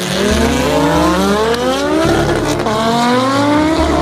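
Drag cars launching off the start line under full throttle. The engine pitch climbs steadily, drops at a gear change about two and a half seconds in, then climbs again.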